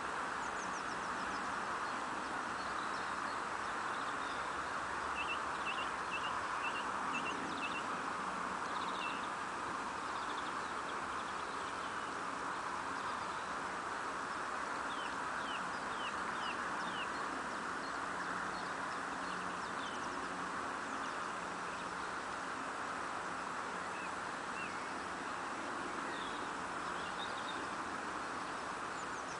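Small birds chirping in several short runs of quick high notes over a steady background hiss.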